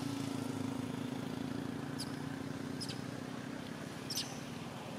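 Short, high, downward-sweeping squeaks from a young long-tailed macaque, three of them about two, three and four seconds in. Under them runs a steady low engine hum.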